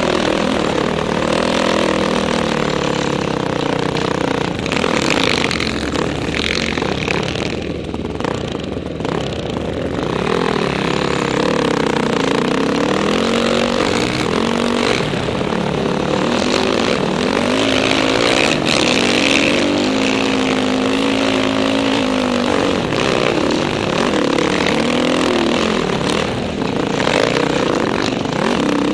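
Dirt bike engine heard from on board, revving up and down as the throttle is worked over the sand, with a steadier stretch about two-thirds of the way through. A rushing noise from the ride sits under the engine throughout.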